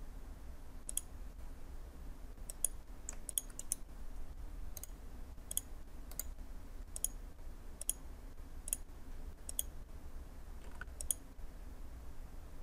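Computer mouse buttons clicking: about fifteen short, sharp clicks at irregular intervals, some in quick pairs, over a faint low hum.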